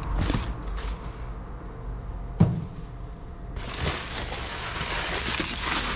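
Handling noise as a steel basin of dried fish and its cloth cover are picked up: cloth rustling, one sharp knock about two and a half seconds in, then a steady rustling hiss over the last couple of seconds.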